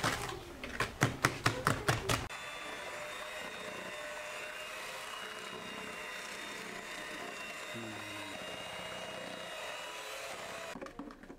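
A quick run of sharp knocks, then an electric hand mixer running steadily with a motor whine as its beaters whip eggs in a plastic bowl, switching off shortly before the end.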